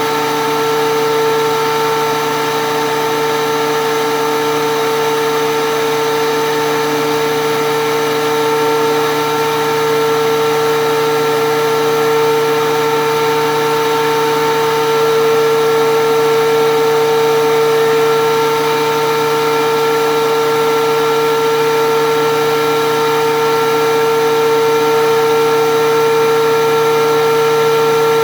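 DeWalt DW735 13-inch thickness planer running at a steady speed, a loud even whine with a fixed pitch that never rises or falls.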